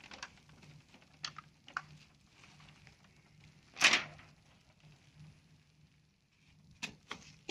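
A clear plastic film sheet being handled by hand: sparse faint rustles and clicks, with one short, louder crackle about four seconds in and two more clicks near the end.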